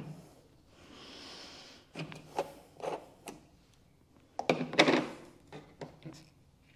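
A white plastic screw lid being unscrewed from a large glass jar and set down on a tabletop, with short knocks and rubbing of the jar and lid against the table; the loudest clatter comes about halfway through.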